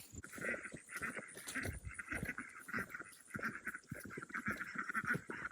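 A group of ducks quacking and chattering, a busy, rapid stream of calls.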